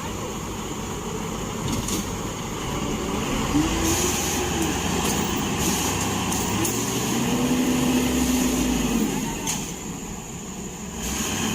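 Heavy construction machine engine running, its pitch rising and falling as it revs up and back down twice over a steady rumble, with a few short knocks.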